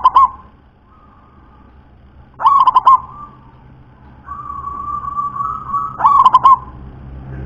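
Zebra dove (perkutut) singing its cooing song. A softer drawn-out coo leads into a quick run of about four loud rolling coos. A phrase ends right at the start and two more full phrases follow, about three and a half seconds apart.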